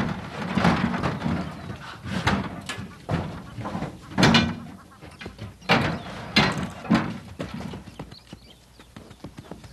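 A white rhino calf bumping and stamping about in a transport crate and pole enclosure: a run of sharp knocks and bangs, loudest about four seconds in and again around six to seven seconds, dying down near the end.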